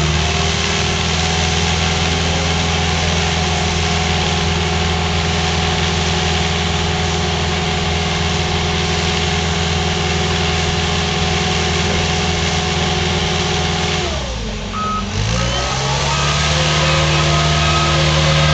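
Heavy diesel engine of a Western Star twin-steer drilling-rig truck running steadily at a fast idle. About fourteen seconds in, its speed sags, then revs back up and holds at a higher pitch, while short repeated beeps start.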